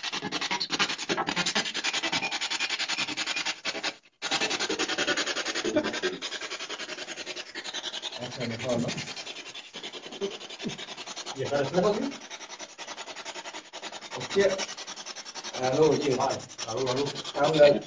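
Spirit box static: a loud hiss chopped by rapid regular clicks as the device sweeps through radio stations. The hiss cuts out briefly about four seconds in, and short voice-like snatches break through in the second half.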